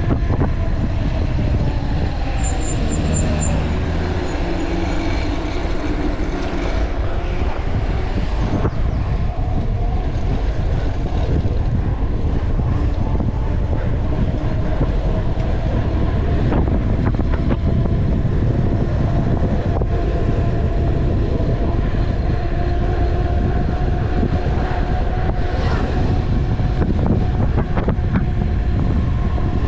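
Wind buffeting the camera microphone and tyre noise from a mountain bike coasting fast down a paved road, with a steady hum running underneath.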